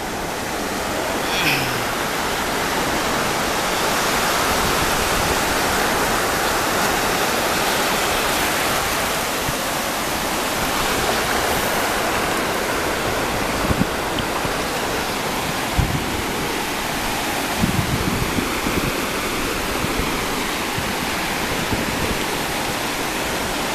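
Shallow surf washing in over wet sand at the water's edge: a steady rush of foaming water, with a few soft low bumps in the second half.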